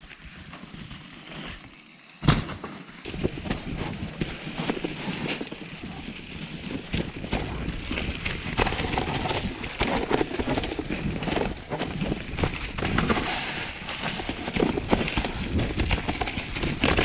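Mountain bike ridden down a wet, muddy, leaf-covered trail: tyres crunching and crackling through wet leaves and mud, with a steady clatter of small knocks as the bike rattles over roots. Quieter at first, then a sharp knock about two seconds in, after which the riding noise runs continuously.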